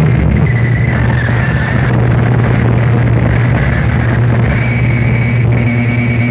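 Harsh noise music: a loud, dense wall of distorted noise over a steady low hum. A thin high whine sits on top for about a second near the start and comes back for the last two seconds.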